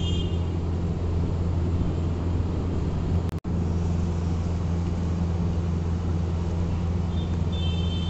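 A steady low hum over a constant background noise, broken off for a moment a little over three seconds in. A few short high chirps come near the end.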